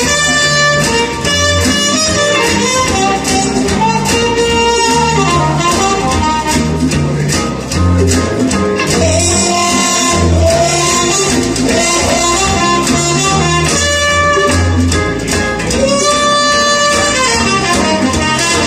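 Recorded music playing through a hi-fi system: a Solaja Audio Tandem SE single-ended amplifier driving speakers with RAAL ribbon tweeters. A steady bass line runs under melodic instruments, heard through a mobile phone's microphone in the room.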